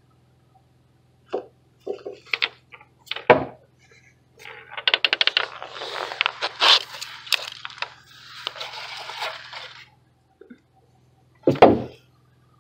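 Stone marble egg banging and clattering on a concrete floor as a spotted skunk hikes it about: a few sharp knocks, a long run of rapid clatter, then one more loud knock near the end. The skunk is either playing with it or treating it as a real egg and trying to break it.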